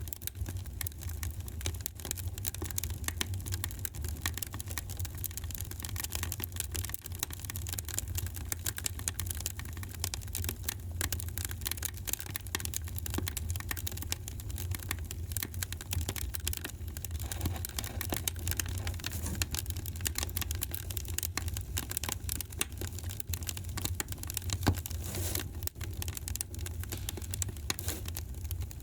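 Fire in a fireplace crackling: constant small snaps and pops over a low steady rumble, with one louder pop a few seconds before the end.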